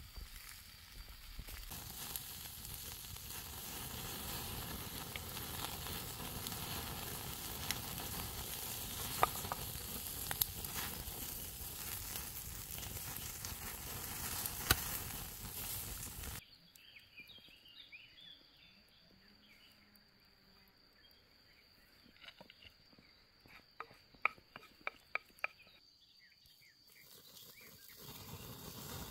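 Rabbit roasting on a wooden spit over a campfire: fat sizzling and wood crackling, a dense hiss with sharp pops. About halfway it drops suddenly to a quieter stretch with a thin steady high tone and a short run of clicks, and the hiss returns near the end.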